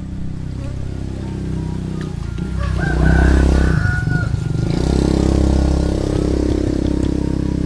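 Small motorcycle engine passing along a road close by. Its running grows louder up to about three seconds in and stays loud after that.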